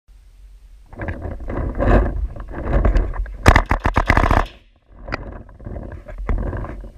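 Paintball marker firing a fast string of about ten shots, lasting about a second, a little past three seconds in. Other knocks and noise come before and after the shots.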